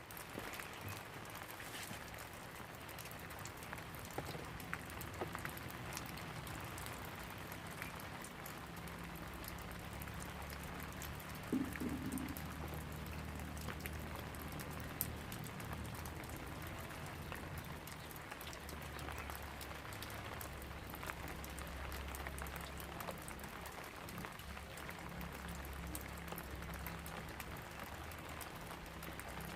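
Steady rainfall, with many single drops ticking sharply against a surface, over a low steady hum. A brief louder sound stands out about twelve seconds in.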